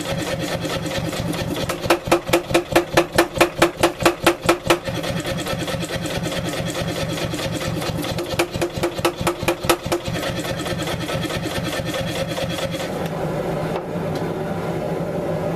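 Mechanical power hammer with a 16 kg head cycling at about five blows a second on hot wootz steel. It lands two runs of heavy blows, around two to five seconds in and around eight to ten seconds in, then stops striking near the end, leaving a steady motor hum.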